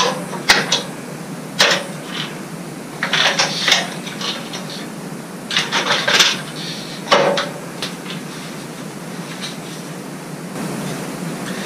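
Scattered clicks, knocks and rustling of hands handling the upper arm and blade clamp of a DeWalt scroll saw and moving a plastic part off its table, with the saw not running, over a steady low hum.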